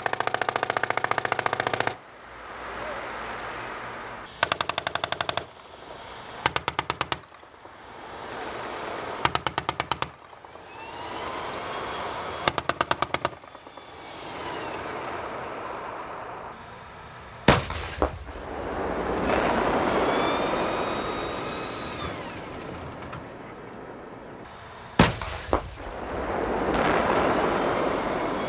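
M1A1 Abrams tank gunnery: five short bursts of rapid machine-gun fire in the first half, then two single heavy cannon shots about seven seconds apart, the loudest sounds here. After each shot comes a swelling rush with a whine that bends in pitch, the tank's gas turbine as it drives.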